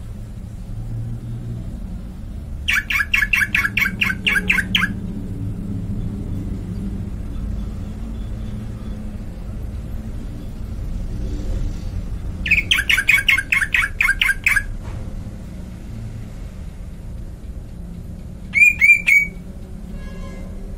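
A bird calling: two runs of rapid, evenly repeated chirps, each about two seconds long, then a short burst of three chirps near the end, over a steady low background rumble.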